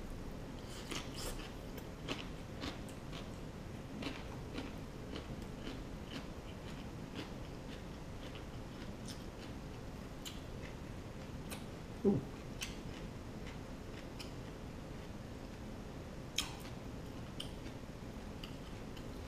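A person eating steamed king crab: faint chewing, with scattered small clicks and crackles of crab shell being picked apart by hand, and one louder knock about twelve seconds in.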